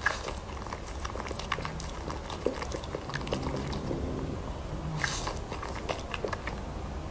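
Pug licking and smacking its lips over and over: a steady run of irregular wet clicks and smacks.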